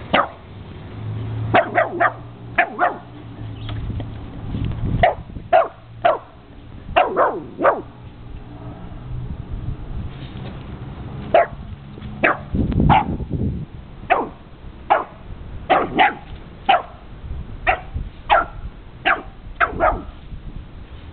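A dog barking at a cat: repeated short barks in loose bursts of two to four, with brief pauses between the bursts.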